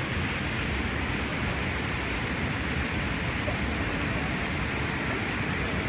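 Steady rush of turbulent, foaming river water.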